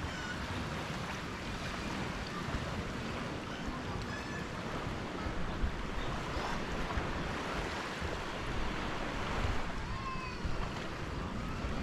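Small waves washing steadily onto a sandy beach, with a few faint, short high-pitched calls in the background, a couple of them near the end.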